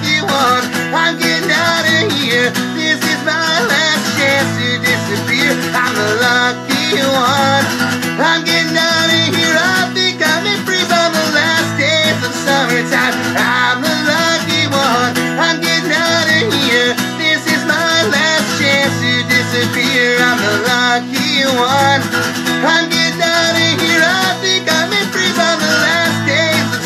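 A man singing over steadily strummed acoustic guitar.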